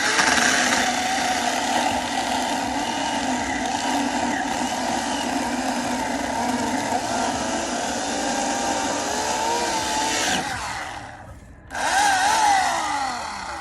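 Electric chainsaw running at full speed for about ten seconds, then released and winding down with a falling whine. A short second burst follows and also winds down.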